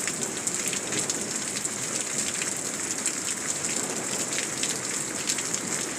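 Hard rain falling steadily, with scattered sharp ticks of drops striking nearby surfaces.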